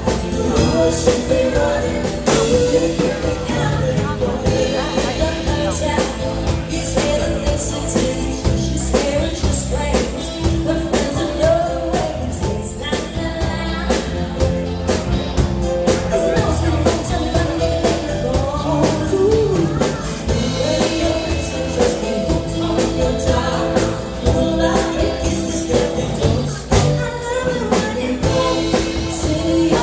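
Live band performing a song: a woman sings the lead over acoustic guitar, electric bass and a drum kit keeping a steady beat.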